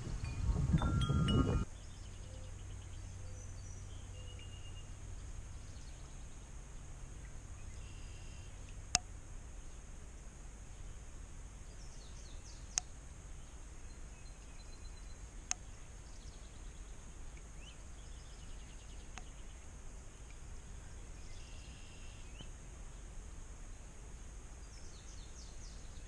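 Chime-like ringing for about the first second and a half, then quiet outdoor background with a few faint bird chirps and three sharp clicks spread through the middle.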